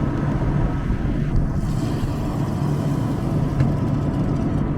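Combine harvester running steadily, a low, even engine drone.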